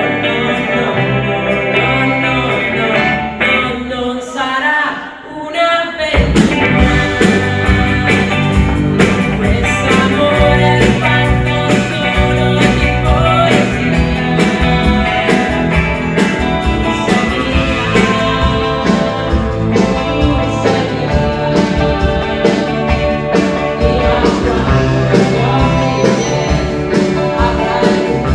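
Live band music: a rock song with guitar and a singing voice. A few seconds in the band thins out to a brief break, then comes back in fully with drums about six seconds in.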